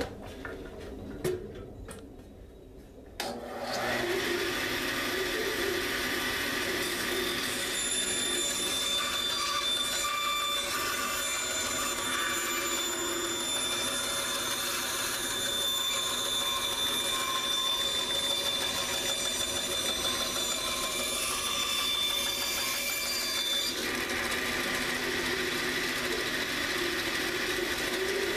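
Bandsaw starting about three seconds in after a few clicks, then running steadily as it cuts through a 3/4-inch wooden board. The sound changes a little near the end.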